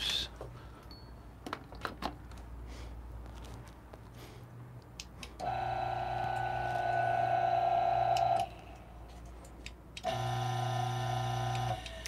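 Turin DF64 single-dose coffee grinders run empty one after the other, each motor spinning its exposed lower 64 mm flat burr with a steady hum: the first, louder run starts about five seconds in and lasts about three seconds, the second starts about ten seconds in and runs nearly two seconds. Before them, a few light clicks of handling. The two motors sound much alike, the second perhaps slightly quieter.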